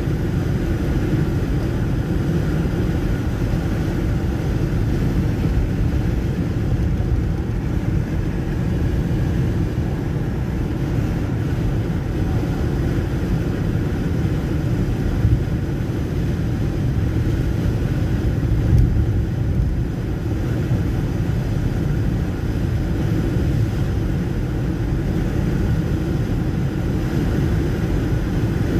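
Steady low road rumble of a car at highway speed, heard from inside the cabin: tyre and engine noise, with two short bumps about halfway through.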